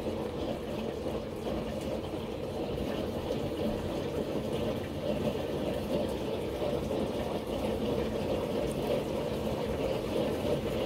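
Washing machine running its clean-washer cycle with an empty drum: a steady rush of water in the machine.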